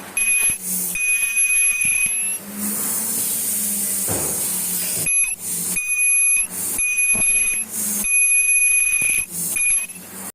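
A machine on a bag-filter production line giving a high, steady whine that switches on and off in stretches of about a second. Short bursts of hissing air fall between the stretches.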